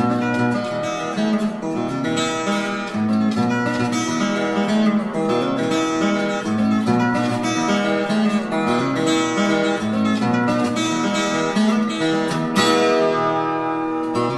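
Acoustic guitar music, plucked notes and strummed chords at a steady pace.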